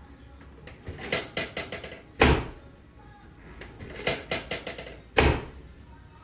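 Chiropractic drop table: the pelvic drop section slams down twice with a loud, sharp clack, about three seconds apart, as the sacroiliac joint is adjusted. Runs of lighter clicks come before each drop.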